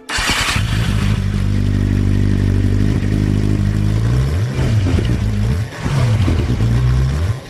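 Suzuki GSX-R motorcycle engine running through its newly fitted exhaust. It idles steadily for about four seconds, then is revved up and down about three times before cutting off near the end.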